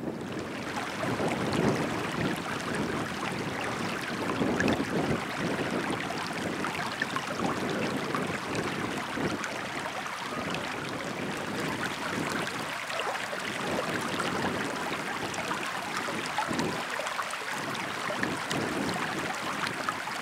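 Outdoor wind gusting on the microphone over a steady rushing hiss.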